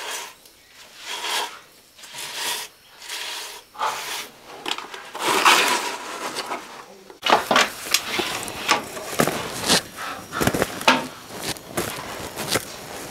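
Hands scooping and scraping wet cement in a bucket and rubbing it onto a wall around a window frame, in irregular strokes. About seven seconds in, this cuts off suddenly, giving way to the rustle and snap of leafy sweet-potato vines and clicks as the tubers are dug out and handled.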